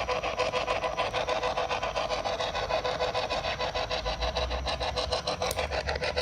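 A steady, rapid rhythmic rasping, several even pulses a second, unchanging throughout.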